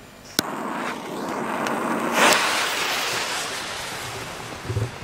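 A sharp crack about half a second in, then a hissing rush that swells and slowly fades: the fuse of a 2.5-inch salute shell lit and burning. Quick low thuds of footsteps come in near the end.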